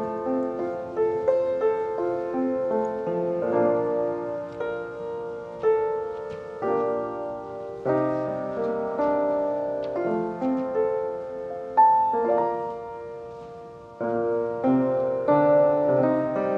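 Solo piano playing a slow piece of struck notes and ringing chords; a phrase dies away about fourteen seconds in and a new one begins.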